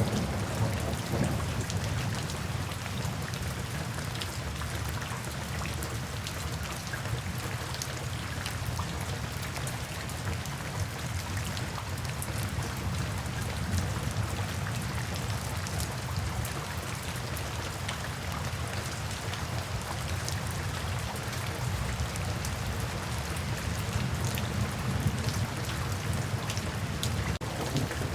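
Steady rain falling, with many small drop hits over a low, continuous rumble underneath.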